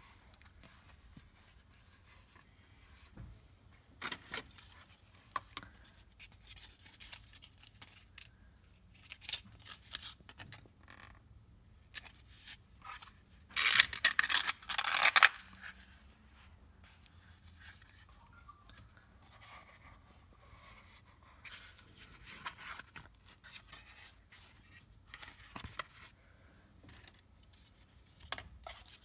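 Cardboard and paper eyelash packaging boxes being handled: scattered scrapes, rubs and rustles as boxes are picked up, opened and closed. The loudest is a quick run of scraping strokes about halfway through, as a paper-wrapped box is opened.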